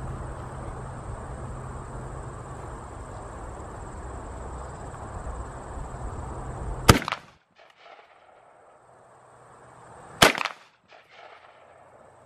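Springfield M1A semi-automatic rifle firing two loud shots about three seconds apart, the first about seven seconds in, each trailing off briefly.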